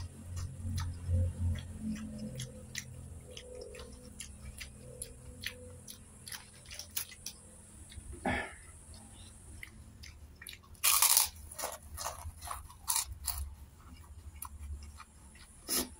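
Close-up eating sounds of a man eating rice and canned sardines with his hand: wet chewing with many short mouth clicks and lip smacks. About eleven seconds in comes a louder, short breathy noise.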